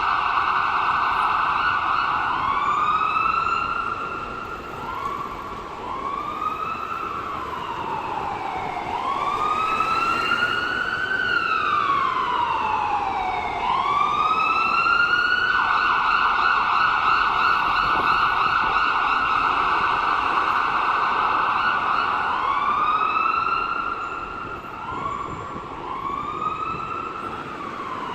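Ambulance siren changing through its modes. It opens on a held high tone, breaks into quick rising whoops, then slides slowly down and back up twice. A long held high tone follows, and more quick rising whoops come near the end.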